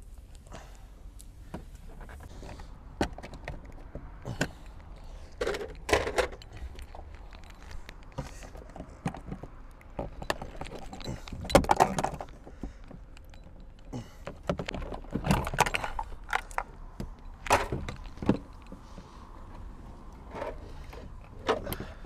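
Irregular clicks, knocks and rattles of car interior parts being worked loose and handled, loudest in a cluster of knocks about halfway through.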